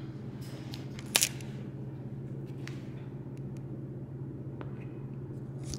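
Steady low hum, with one sharp click about a second in and a few faint ticks later.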